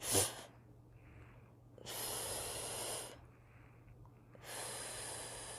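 A voice making the long voiceless phonics sound 'fff' twice, each a steady hiss of breath lasting about a second and a half: the Jolly Phonics sound for the letter F, like air escaping from a punctured inflatable fish.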